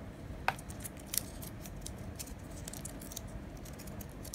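Faint, scattered rustles and small clicks of hands handling and uncoiling a white USB charging cable.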